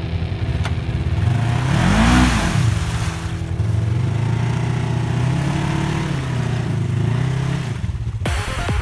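Polaris side-by-side UTV engine revving as it tries to drive out of a deep mud hole, stuck with its wheels churning in the mud. The revs climb and fall about two seconds in, hold, and rise again near the end.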